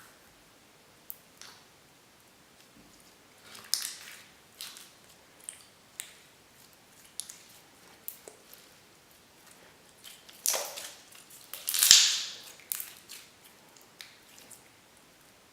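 Slime being squished and pressed by hand, giving irregular sticky pops and clicks, with two louder crackling squelches about two-thirds of the way through.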